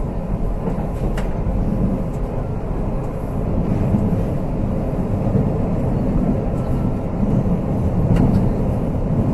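Tyne and Wear Metro train running, heard from inside the carriage: a steady low rumble of wheels on rails, with a couple of faint clicks about a second in and near the end.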